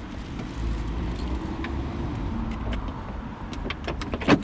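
Clicks and knocks of a car door handle being worked loose and pulled out of the door shell, over a steady low rumble, with one loud knock near the end.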